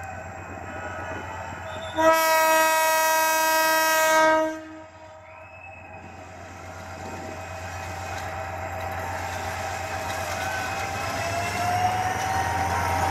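Meter-gauge Hyundai Rotem GT18LA-2 diesel locomotive sounding one long horn blast of about two and a half seconds, starting about two seconds in. After it, the locomotive's engine and the train's running noise grow steadily louder as it approaches.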